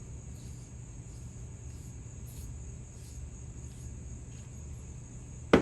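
Steady low workshop hum with faint, scattered light scratches, then near the end two sharp clacks in quick succession, hard objects knocking together.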